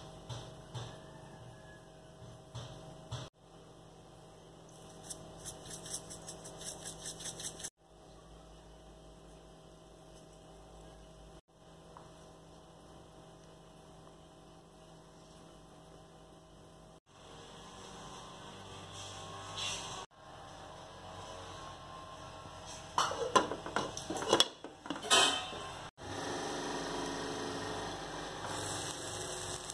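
A steady electrical hum runs underneath. A few sharp clinks come close together about three-quarters of the way in, and a steady hiss follows near the end.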